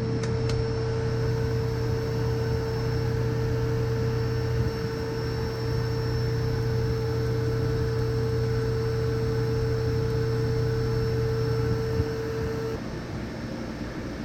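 Steady machine hum with a whining tone, like a running motor; the whine cuts off suddenly about thirteen seconds in and the sound gets a little quieter.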